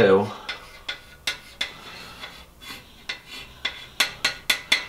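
Chalk scratching and tapping in short strokes on a steel welding-table top as lines are drawn, with a quick run of about five strokes near the end.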